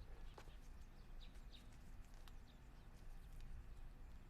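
Near silence: faint room tone with a few soft ticks and some faint, short high-pitched chirps.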